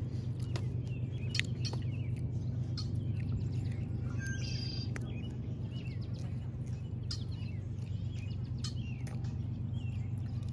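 Small birds chirping in short calls, with a brief trill about halfway through, over a steady low rumble. Scattered crisp clicks and crunches come from lettuce leaves being handled and chewed.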